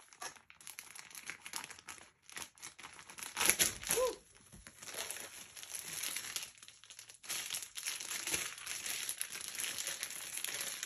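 Clear plastic packaging crinkling in a run of ragged rustles as it is handled and pulled open to unwrap a large squishy ball, loudest a little before the middle.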